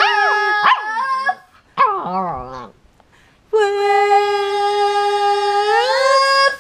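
Toy poodle howling along with a girl's singing: high, gliding and wavering howls in the first half, then a long held note that rises in pitch near the end and stops abruptly.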